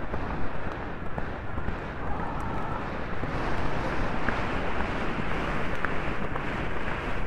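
Wind buffeting the microphone of a rider's helmet camera at a gallop: a steady rushing noise with a low rumble.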